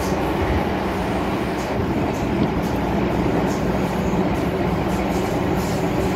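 MTR M-Train electric multiple unit running on the Tsuen Wan Line, a steady, even rumble of motors and wheels on the rails.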